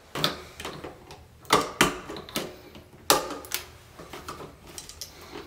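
Irregular clicks and taps as a wall light switch and its copper wires are handled and a screwdriver works at the switch. The sharpest clicks come about one and a half and three seconds in.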